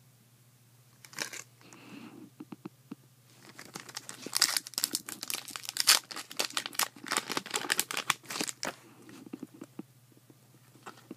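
Foil wrapper of a hockey card pack being torn open and crinkled by hand, in a dense run of crackling from about three to nine seconds in. Softer rustling follows as the cards are handled.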